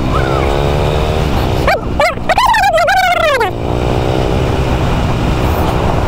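Motorcycle engine running steadily on the road, its pitch slowly climbing as it gathers speed. Between about two and three and a half seconds in, several loud, high, wavering calls sound over it.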